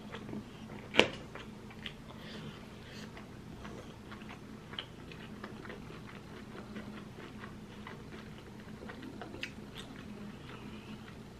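Close-miked eating sounds of cheesy instant noodles: chewing and slurping with many small wet mouth clicks, and one sharper click about a second in.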